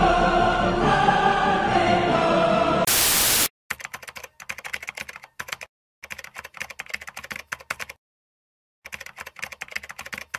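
Orchestral theme music that breaks off about three seconds in with a brief burst of loud static. Then comes a sound effect of rapid keyboard typing, runs of fast clicks separated by short pauses.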